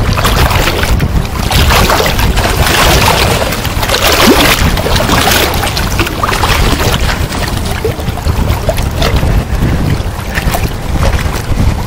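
Wind buffeting the microphone over the steady rush of a shallow river flowing over a rocky bed.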